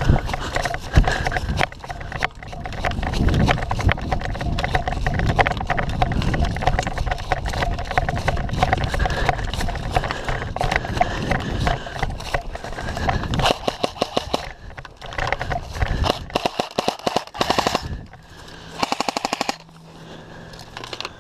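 Automatic gunfire, dense and rapid for most of the stretch, then breaking into several short separate bursts near the end.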